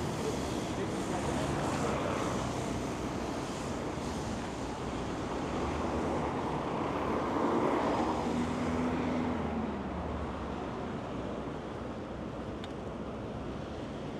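Road traffic on a wet city street: cars and buses passing with tyre hiss. One vehicle passes about eight seconds in with a falling engine note, and wind buffets the microphone.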